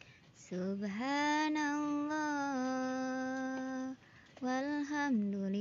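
A single high voice singing a sholawat devotional chant without words: a long held note that starts about half a second in, rises and sways slightly before stopping near 4 s, then a new phrase that begins after a short pause.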